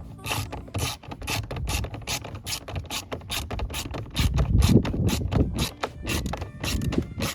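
Ratcheting tool with a T20 Torx bit clicking rapidly, about five clicks a second, as the car door's screws are driven back in; it is louder and heavier around the middle.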